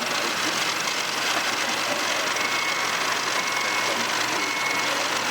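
Radio-controlled model construction machines' motors running, a steady whirring with a faint high whine that comes and goes in the second half.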